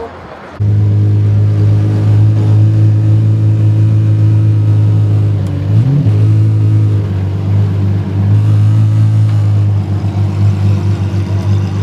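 Supercar engine idling loudly and steadily at close range. It cuts in abruptly about half a second in and holds an even pitch, wavering slightly near the end.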